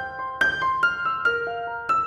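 Background music: a melody on a piano-like keyboard, several struck notes a second, each ringing and fading.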